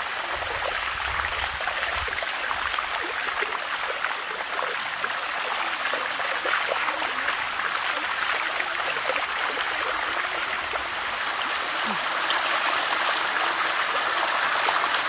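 Steady rush of spring water flowing down a shallow cascade over mineral-crusted limestone rock.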